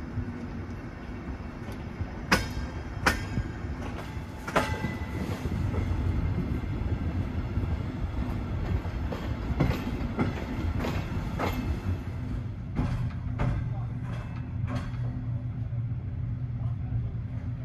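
Steady low hum of a train standing at a station platform, broken by about nine sharp metallic clicks and knocks, the loudest in the first few seconds.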